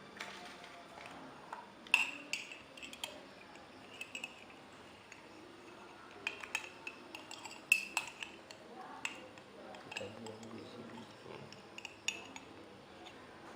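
A metal spoon clinking and tapping against a glass or dish in irregular, short strikes, each with a brief ringing note, as lime juice is handled and mixed.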